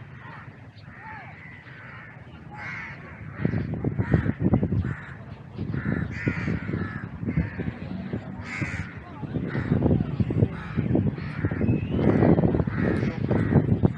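Crows cawing over and over. A loud, irregular low rumble comes in about three seconds in and stays under the calls.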